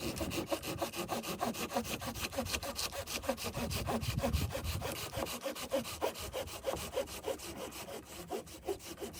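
Hand saw cutting through wood in quick, steady back-and-forth strokes.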